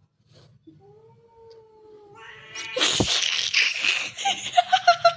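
Domestic cats caterwauling at one another in a standoff: a long low yowl, then about three seconds in a loud, harsh outburst that breaks into short, choppy yowls.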